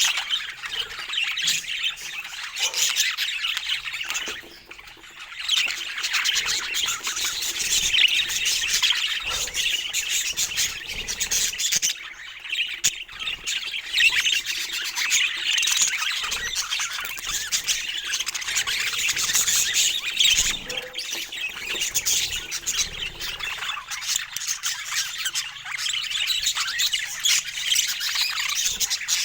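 Budgerigars chattering and chirping continuously, with short squawks mixed in and a brief lull about four seconds in.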